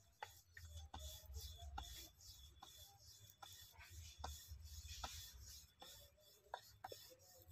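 Faint rubbing of a wooden rolling pin rolling out dough on a metal rolling board, with scattered light clicks and taps.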